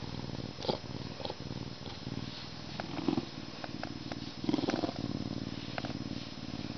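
Lynx purring with a deep, rumbling purr while its head and neck are rubbed, a sign of contentment at being petted. A few short rustles of the hand in its fur come through over the purr.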